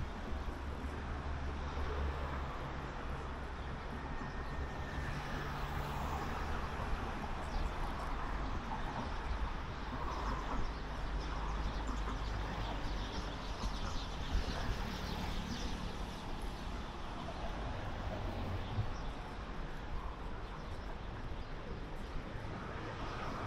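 Street traffic: a steady low engine hum and the noise of passing vehicles, with a pitched engine drone strongest in the first few seconds.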